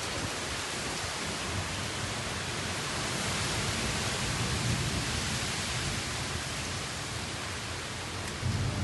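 Steady rain hissing, growing slightly louder midway.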